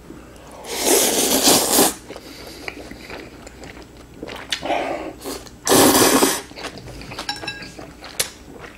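Two loud slurps of instant ramen noodles, the first about a second long and the second shorter, past halfway, with wet chewing and small mouth clicks between and after.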